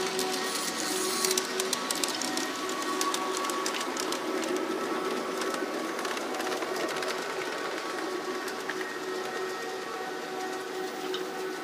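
G-scale model freight wagons rolling along garden railway track, their wheels clicking over the rail joints, thickest in the first two seconds and thinning out as the train moves away. A steady electric hum at several pitches runs underneath.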